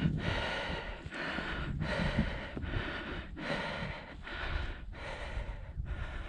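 A man's heavy, rapid breathing close to the microphone, about one breath every 0.8 s: he is out of breath from scrambling up a steep rock pinnacle.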